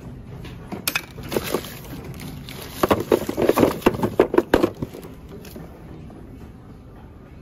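Gray plastic PVC pipe fittings knocking and clattering against each other and the plastic bin as a hand rummages through them. A few separate knocks come in the first couple of seconds, then a busy clatter from about three seconds in that stops before five seconds.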